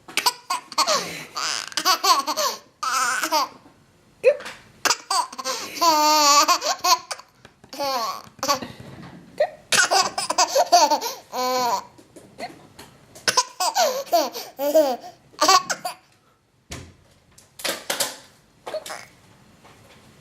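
Baby laughing in repeated short bouts with brief pauses between them, tailing off near the end.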